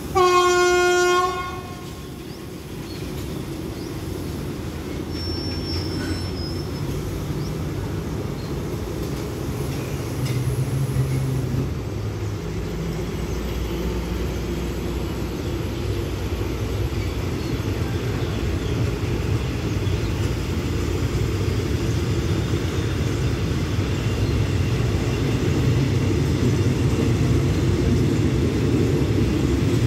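A train horn sounds once, briefly, then passenger carriages roll along the rails with a steady rumble of wheels that grows gradually louder.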